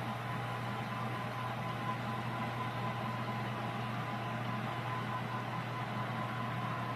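HO scale model freight train's cars rolling by on the track, a steady running noise over a low hum.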